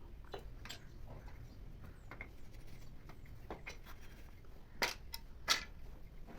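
Scattered light clicks and knocks of wood and hand tools being handled at a workbench, with two sharper, louder knocks about five seconds in.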